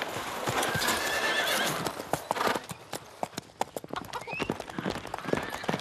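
Hooves of cavalry horses clattering in a dense, uneven patter, with a horse whinnying about half a second in.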